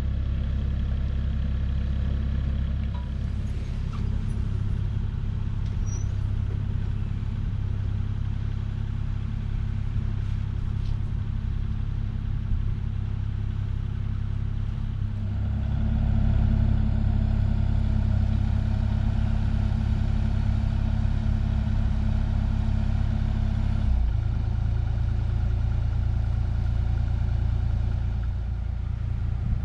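Kubota KX040 mini excavator's diesel engine running steadily while it works a beam on its forks; the engine note steps up and grows louder about halfway through and changes again a few seconds later.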